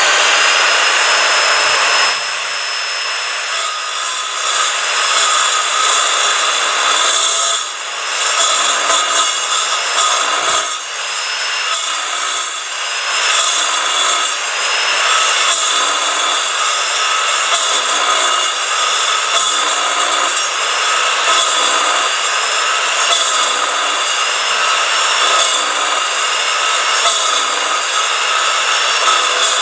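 Evolution RAGE4 chop saw cutting through a 30 mm square bar of mild steel. The motor runs free for about two seconds, then the blade bites into the steel and keeps up a steady grinding cut. Its high whine wavers slightly as the load on the motor changes.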